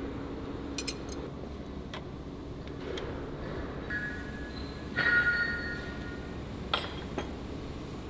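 Steel hand wrenches clinking against steel fittings and bolts: scattered sharp clicks, and a ringing metallic clang about five seconds in, over a steady low workshop hum.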